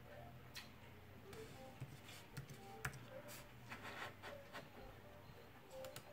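Near silence: faint room tone with a low hum and a few scattered faint clicks.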